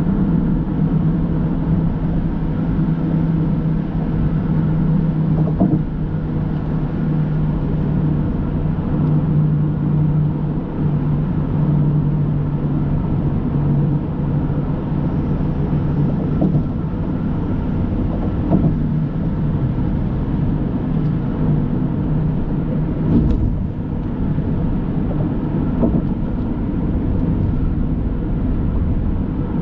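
Car driving at freeway speed: a steady hum of road, tyre and engine noise, with a few light knocks scattered through it.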